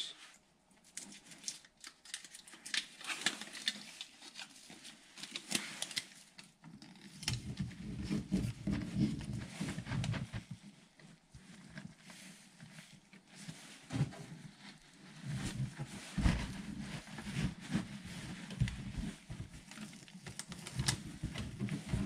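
Irregular clicks, scrapes and knocks of hand work close to the microphone, with bouts of low thudding and rumbling.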